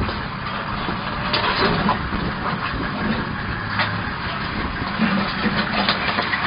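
Engine of an open safari vehicle running steadily at low speed as it drives slowly up, with a low hum and scattered crunching clicks.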